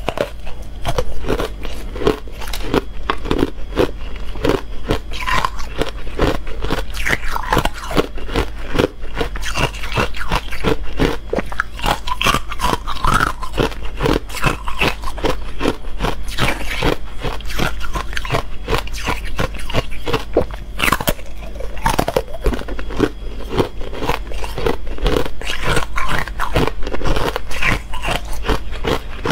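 Hard ice being bitten and chewed: a steady run of crisp cracks and crunches from a frozen ice bar dipped in matcha powder.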